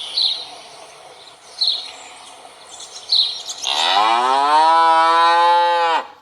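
A cow mooing: one long loud moo in the second half, rising in pitch at the start, then holding steady and cutting off abruptly. Before it, a few short high chirps are heard over a steady outdoor hiss.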